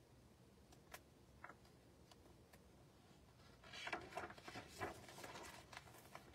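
A few faint clicks, then about three and a half seconds in a picture book's page being turned over: a paper rustle lasting a couple of seconds.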